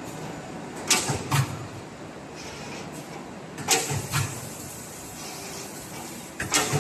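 CNC automatic punching machine working aluminum channel profile: a pair of sharp metallic punch strokes about every three seconds, three times, over a steady machine hum.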